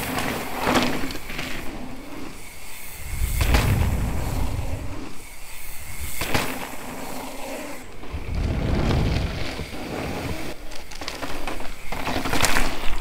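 Mountain bike tyres rolling and skidding over loose gravel and dirt as a rider passes close by, several times, each pass a swell of rumble and hiss.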